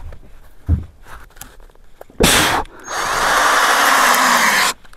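Power drill driving a screw in two runs: a short burst about two seconds in, then a steady run of nearly two seconds that stops abruptly.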